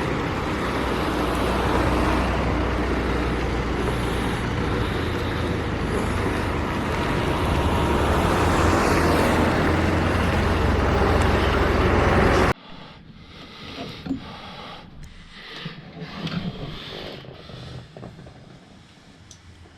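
Rail-replacement bus running, heard from inside the cabin: a steady low engine hum with road noise. It cuts off suddenly about twelve seconds in, leaving quieter scattered knocks and rustling.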